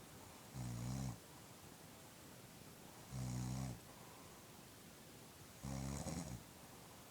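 A woman snoring in her sleep: three snores, each about half a second long, coming about two and a half seconds apart.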